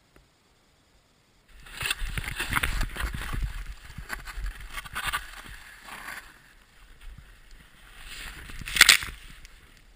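Snowboard sliding and scraping over powder snow, an uneven hiss that swells and fades as the rider turns, with a low rumble of wind on the helmet camera. It starts about a second and a half in after near silence, and there is one loud scrape near the end.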